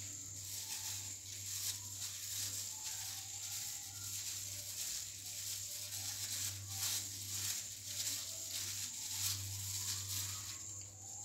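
Plastic-gloved hand rolling a flour-coated egg in a bowl of beaten egg wash: irregular soft crinkles of the glove and small wet clicks, over a steady low hum.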